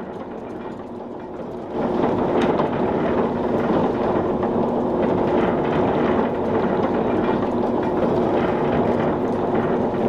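Slipway winch hauling a boat cradle up the rails: a steady mechanical running and rattling, louder from about two seconds in.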